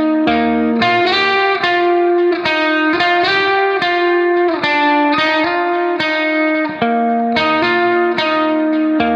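Background instrumental music: a run of plucked notes, two or three to the second.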